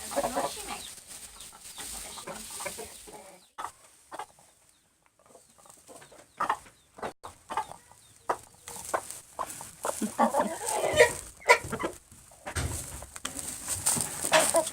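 A flock of American Buckeye chickens clucking and making the low growling calls the whole flock keeps up, in scattered bursts that die down briefly about four seconds in and pick up again.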